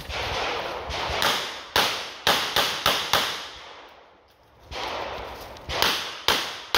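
Smith & Wesson 929 revolver firing 9×19 mm cast-bullet loads in rapid single shots. Five shots come about a third of a second apart, then a pause, then three more near the end, each shot trailing off in echo.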